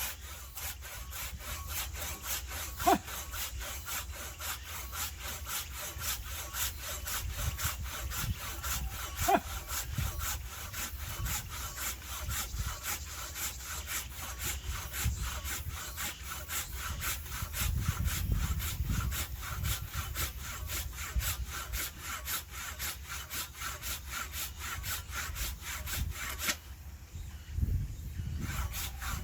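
A hand saw cutting through wood in steady back-and-forth strokes. It stops for about a second and a half near the end, then starts again. A brief sharp squeak cuts in twice, about three and nine seconds in.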